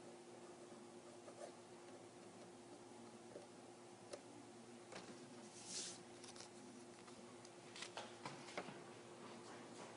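Faint handling noises of adhesive strips being laid onto a phone's frame: scattered light clicks and taps, a brief rustle about six seconds in, and a few sharper taps near the end, over a faint steady hum.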